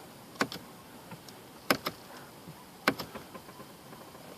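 Three faint, sharp clicks about a second and a quarter apart.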